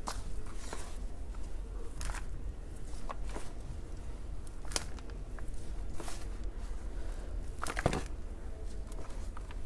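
Scattered crackles and scrapes from soil and containers being handled during the dig, with a few sharper clicks, over a steady low rumble.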